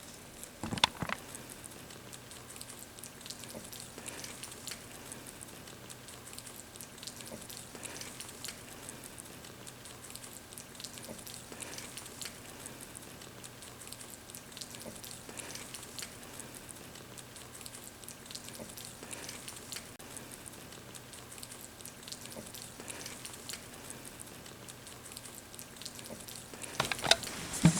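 Baby rabbits nibbling and chewing fresh wild greens, a faint scatter of small crunches and leaf rustles, with a couple of louder knocks about a second in and near the end.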